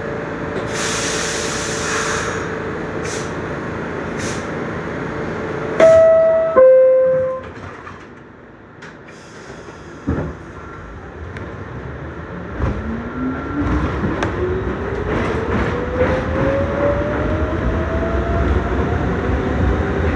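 Inside an R62A subway car: the two-note falling door chime sounds about six seconds in and the doors close with a thump. The traction motors then start a steadily rising whine as the train pulls out and picks up speed.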